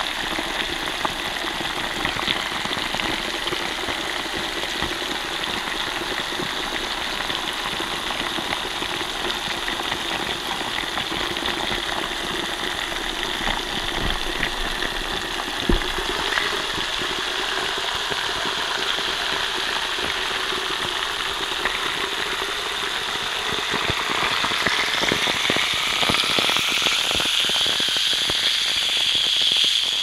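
Effervescent medicine tablet fizzing in a glass of water: a dense, steady crackle of tiny bursting bubbles that grows louder over the last few seconds, with one sharper pop about halfway through.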